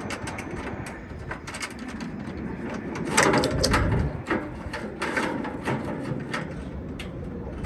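Handling noises of thermostat wire being fed through a grommet in a rooftop AC unit's cabinet: rustling, scraping and scattered small clicks, loudest about three seconds in.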